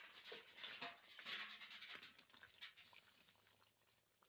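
Faint crackling and bubbling of chicken curry simmering in a kadai, loudest in the first two seconds and then fading.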